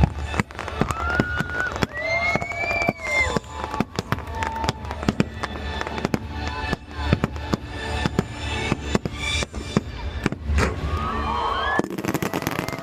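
Fireworks show: a rapid, irregular series of bangs over music, with sliding high tones mixed in. A dense, crackling barrage comes near the end.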